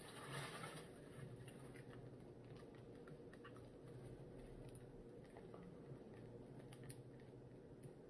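Faint handling noises from hands working with takeout food and packaging: a short rustle at the start, then scattered small clicks and taps, over a low steady room hum.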